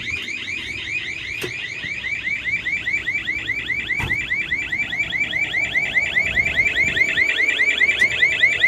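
Welding habitat's control-unit alarm sounder going off with a fast, evenly repeating rising chirp, growing a little louder: the habitat's low-pressure alarm, sounding while the pressure inside is let down.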